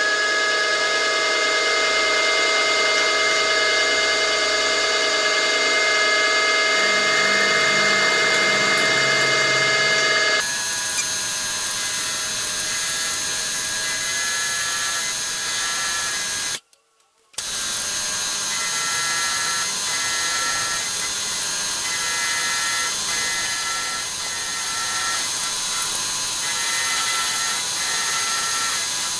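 Milling machine running at about 1000 RPM with a steady multi-tone whine while a 6 mm carbide three-flute end mill, hand-fed, roughs a slot into steel arms. The sound shifts abruptly about ten seconds in and breaks off for under a second just past halfway.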